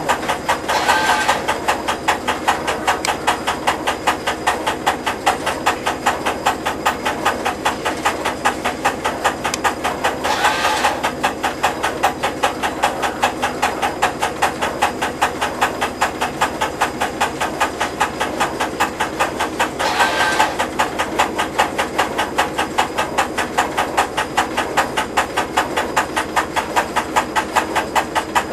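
An engine running at idle with a fast, even beat, with a brief louder surge about every ten seconds.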